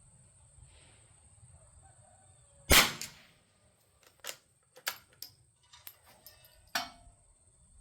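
A single .22 rimfire shot from a Winchester Model 52 bolt-action target rifle, followed by several small metallic clicks and a sharper click near the end as the bolt is worked to eject and chamber the next round.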